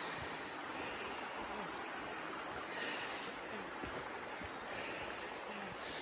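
Steady rushing of flowing water, with a few soft footsteps on the rocky trail.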